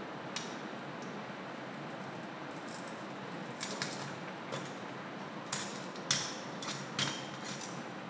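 Small metal clicks and clinks as a spring-loaded steel pin is pushed and seated in a hole in an electric coffee grinder's painted metal housing, over a steady low hiss. One click comes about a second in, then a run of sharper clinks in the second half.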